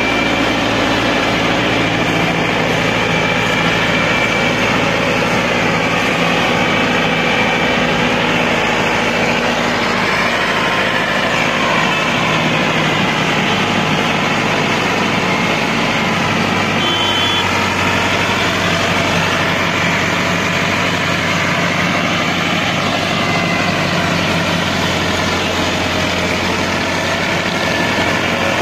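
Massey Ferguson 385 tractor's four-cylinder diesel engine running hard and steadily under load as it drags a heavily laden sugarcane trolley through loose sand. The engine note shifts about two-thirds of the way through.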